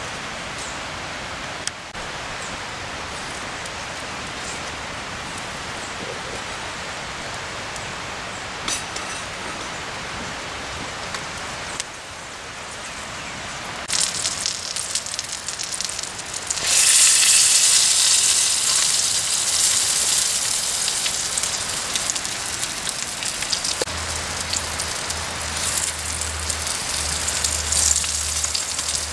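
Sausages sizzling in a No. 3 Griswold cast iron skillet over a small wood fire: a steady hiss that gets much louder and sharper about halfway through. A low hum joins near the end.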